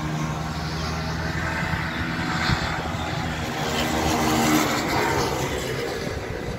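Racing motorcycles running hard along a circuit straight. The engine note swells as a bike passes close about four seconds in, then fades. A single sharp pop comes about two and a half seconds in.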